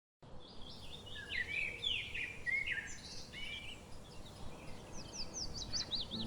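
Songbirds chirping and singing over a faint background hiss, with a quick run of short falling notes near the end.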